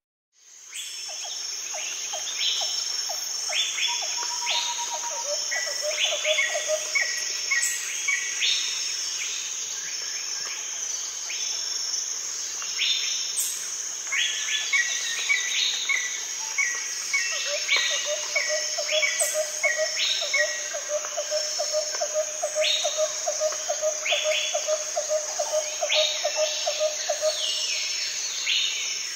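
Birds chirping over a steady high insect hum, with a lower call repeated rapidly for a few seconds early on and again through most of the second half.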